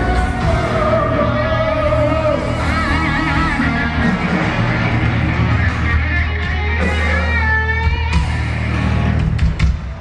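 Live hard-rock band playing through a large outdoor PA: electric guitar lines with vibrato over a steady bass and drums. The song ends just before the close.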